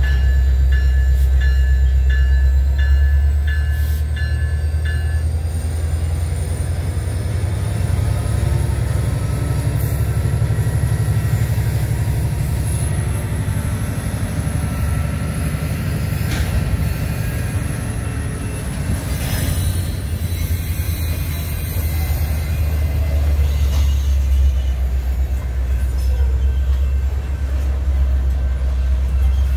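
Covered hopper cars rolling slowly past in a low, steady rumble, with a thin, high wheel squeal that rises and then falls in pitch through the middle.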